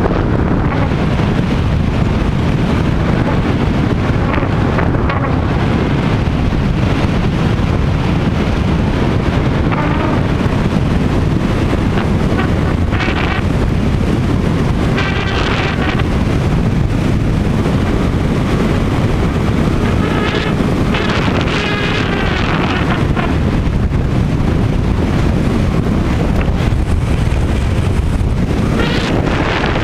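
Airflow rushing over the microphone of a hang glider in flight, steady and loud. A loose piece of the sail vibrating near the camera adds a buzz that comes and goes in several short spells.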